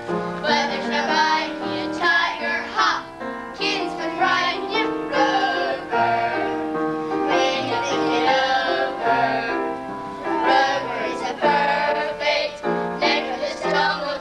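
Children singing a song on stage, several voices together, with piano accompaniment.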